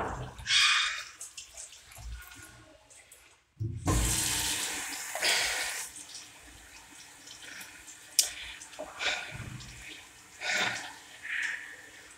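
Tap water running onto hands in a stainless steel sink, splashing unevenly as the hands move under the stream. The water cuts out briefly a few seconds in and then starts again, and there is a sharp click near the middle.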